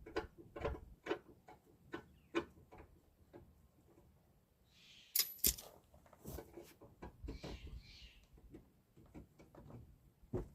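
Irregular clicks and knocks of hand tools and metal parts being handled during repair work, with two sharp metallic clicks about five seconds in and a few short scrapes.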